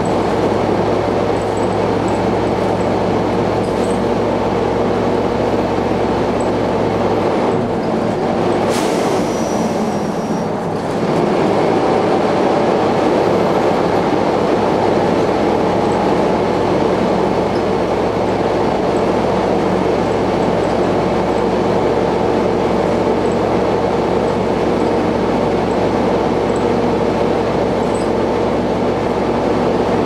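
Optare Solo bus heard from inside the saloon while under way: a steady engine drone with a very loud hoover-like whine over it. About nine seconds in the drone dips and a short hiss sounds, then the drone picks up again around eleven seconds in.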